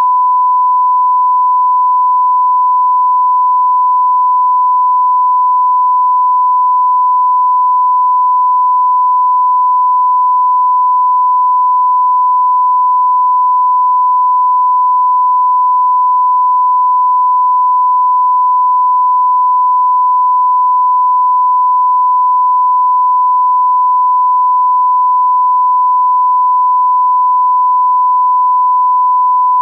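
Continuous 1 kHz broadcast test tone, one pure, steady beep that never changes pitch or level, the sign-off signal that goes with a TV test card.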